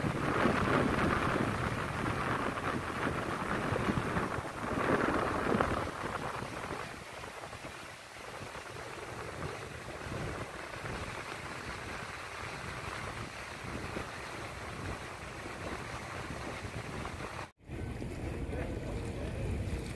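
Small waves washing up a flat sandy beach, with wind buffeting the microphone; the surf swells louder a couple of times in the first six seconds. A brief break near the end, after which the water sound is quieter and calmer.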